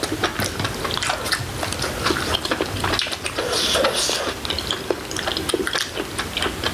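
Wet, close-up eating sounds from bulgogi hotpot: slurping broth and chewing, with many small irregular wet clicks.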